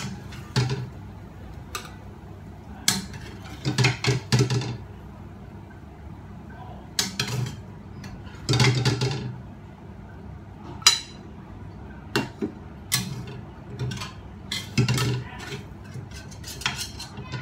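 Metal spatula scraping and clanking against a stainless steel wok as stir-fried chicken and bell pepper are scooped out onto a plate, in irregular bursts of clatter.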